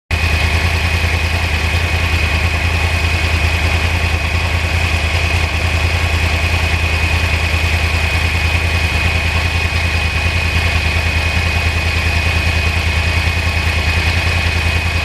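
2009 Yamaha R1's crossplane inline-four idling steadily, a fast, even low pulse with a thin steady high whine over it.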